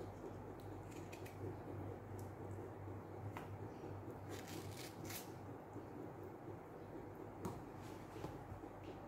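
A small knife cutting through soft ripe mango flesh held in the hand: faint wet scrapes and small scattered taps, over a steady low hum.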